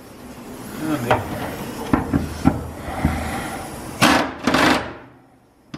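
Pneumatic impact wrench hammering on a truck-bed mounting bolt in two short bursts about four seconds in, after a few knocks as the socket and extension are set on the bolt.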